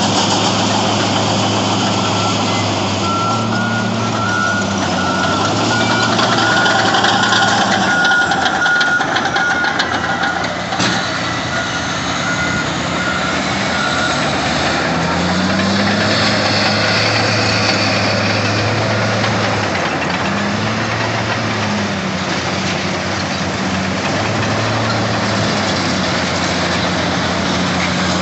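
Heavy Caterpillar diesel engines of a D10N bulldozer and a 651E wheel tractor-scraper working under load, as the dozer pushes the scraper while it loads; engine revs rise and fall throughout. A backup alarm beeps repeatedly from a few seconds in until about halfway through.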